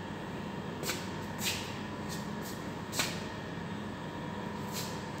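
Steady machine-room hum with a few faint steady tones, broken by four short hisses, one about a second in, one at a second and a half, a sharper one about three seconds in, and a last one near the end.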